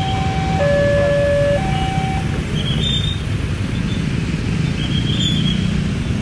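Level-crossing warning signal sounding its alternating two-tone alarm, high then low about a second each, which cuts off about two seconds in as the barriers lift to reopen the crossing. Under it and after it, the steady rumble of waiting motorcycle and car traffic.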